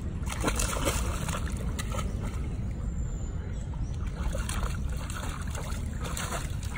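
A Rhodesian Ridgeback wading through shallow pond water, its legs making irregular splashes and sloshing, over a steady low rumble.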